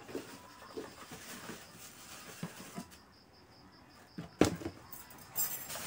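Plastic packaging rustling and a cardboard box being handled, with small clicks and one sharp knock about four seconds in.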